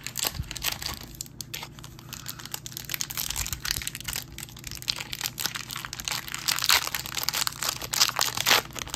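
A foil Topps Chrome trading-card pack wrapper crinkling and tearing as it is ripped open, a dense run of sharp crackles that gets loudest in the second half.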